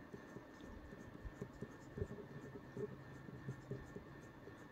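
Pen writing on paper, with faint, irregular scratching strokes as a word is written out by hand.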